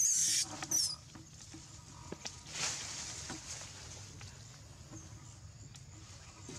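Young macaque screaming: two shrill, high cries in the first second, the second one short. After that come quieter rustling and small clicks among leaves and grass.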